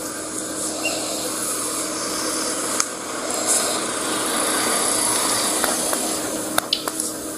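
A passenger car driving slowly past at close range, its engine and tyre noise swelling about halfway through and then easing off, over a steady outdoor hiss.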